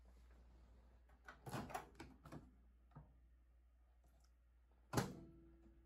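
Clicks of a countertop microwave oven's door latch as the door is released and swung open, then one sharp, loud clack about five seconds in, over a faint steady hum.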